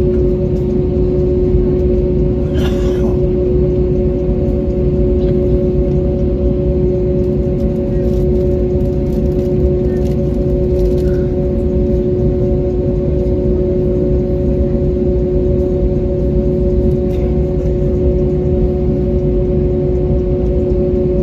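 Airbus A321neo engines idling while the airliner taxis, heard inside the cabin: a steady hum of a few held tones over a constant low rumble. A brief short noise cuts through about three seconds in.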